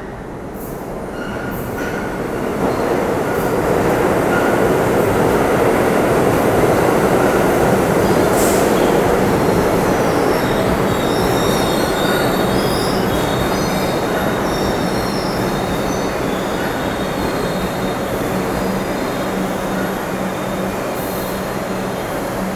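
New York City subway train running along a far track through the station. The rumble of wheels on rail builds over the first few seconds and then holds, under a steady low hum, with high-pitched wheel squeal through the middle.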